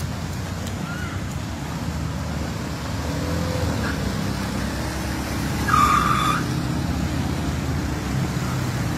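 A car engine running at low revs, a steady low rumble, with one short, loud horn blast about six seconds in.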